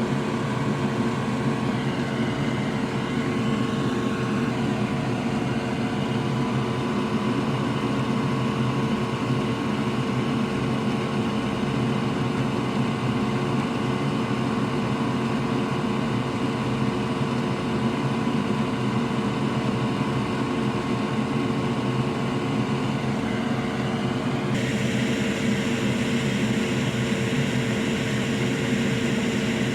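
Steady whir of a small electric fan or blower at the electronics repair bench, a constant hum with a fixed low tone that does not change speed; its higher part changes abruptly near the end.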